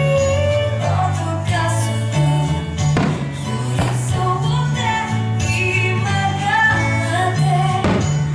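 Music: a song with singing over a repeating bass line, with a few sharp hits.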